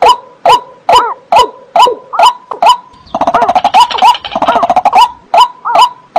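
Recorded wetland bird calls: sharp calls repeated about two and a half times a second, each a click with a short note that rises and falls, and a denser run of overlapping calls in the middle.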